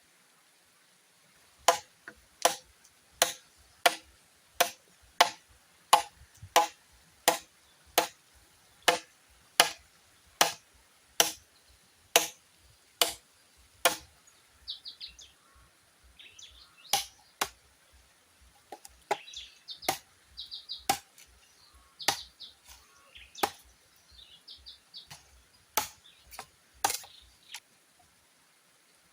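Chopping into bamboo with a blade: sharp, even strokes at about three every two seconds, then slower, irregular strokes with smaller cracks between them after the halfway point.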